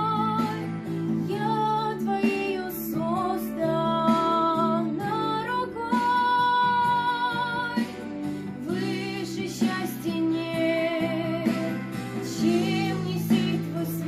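A girl singing a Christian worship song over instrumental accompaniment, her melody held on long notes with vibrato.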